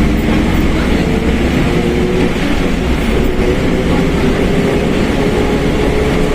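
Mercedes-Benz OF1721 BlueTec 5 diesel bus under way, its running noise carrying a steady whining tone that climbs slightly in pitch: the differential howling loudly, a sign of a worn or badly meshing crown wheel and pinion.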